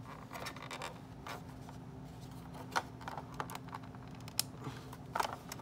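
Light, irregular plastic clicks and taps as a hard-plastic Honey Bee Acres toy van and its parts are handled and worked, with a couple of sharper clicks in the second half.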